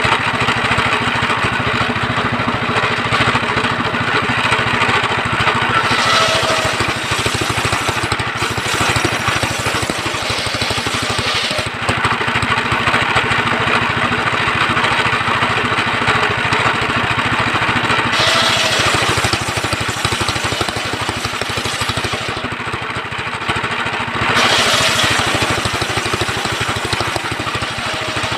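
Engine-driven homemade circular sawmill running steadily, its engine firing evenly, with the blade biting into wood in three stretches of harsher, hissing cutting noise.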